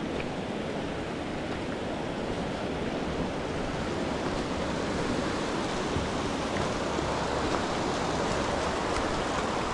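Steady rush of moving water at the shoreline, with some wind on the microphone.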